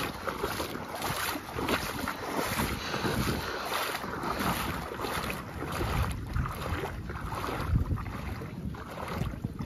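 Wind buffeting the microphone in uneven gusts, with water moving around the boat beneath it.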